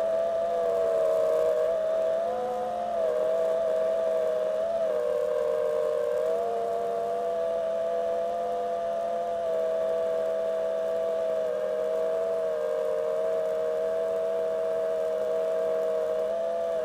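Snowmobile engine running at a steady high pitch under load as the sled climbs a ski slope, the pitch wavering only slightly, with a brief dip about three seconds in.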